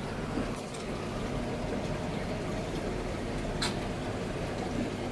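Steady bubbling and running water of an aquarium's circulation, an even wash of noise, with one short click about three and a half seconds in.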